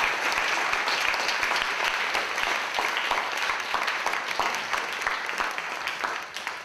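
Audience applauding, a dense patter of many hands clapping that starts to die down near the end.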